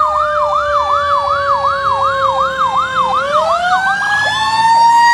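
Ambulance siren sounding a fast yelp of about three sweeps a second over a steadier tone that slowly falls. About three seconds in, the yelp stops and the siren rises to a higher tone and holds it.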